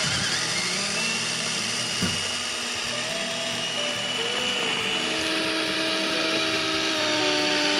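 Small electric motors of a LEGO Technic model icebreaker whining over a steady hiss, their pitch stepping up and down as the speed changes.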